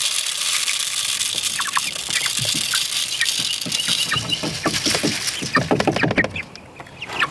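Dry chicken feed poured from a cup into a plastic gravity feeder: a steady rushing hiss that stops about six seconds in. Pullets cheep and cluck through it and after it.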